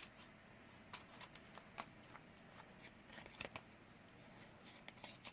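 Faint rustling and a few light taps of paper and cardstock being handled and laid down, scattered through an otherwise quiet room.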